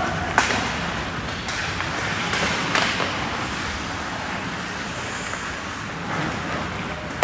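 Ice hockey play in a rink: a steady hiss of skates scraping the ice, broken by a few sharp clacks of sticks and puck in the first three seconds and another sharp knock at the very end.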